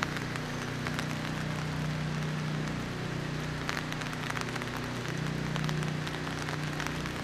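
Steady hiss of rain with many small scattered drip ticks, over a low steady hum.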